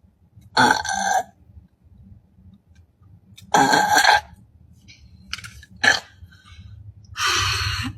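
A young woman's loud burps, several in a row, each under a second long, with short quiet gaps between them.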